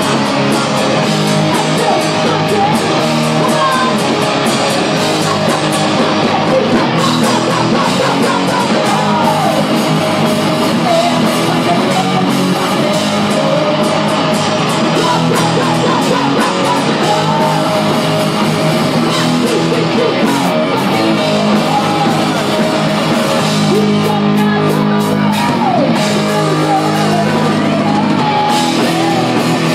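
Live rock band playing loud: electric guitars over bass and drums.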